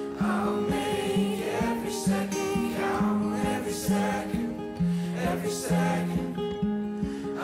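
Background song with voices singing over held notes and a steady beat.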